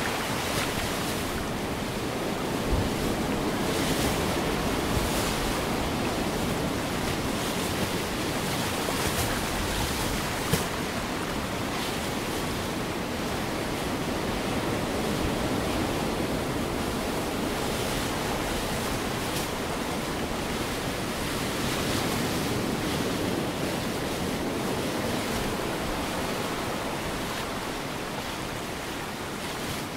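Recorded ocean surf, a steady wash of waves, played as the sound installation's ocean audio track.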